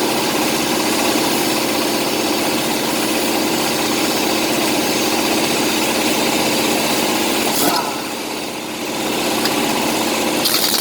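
An engine running steadily. It drops in level about eight seconds in and picks up again a second or two later.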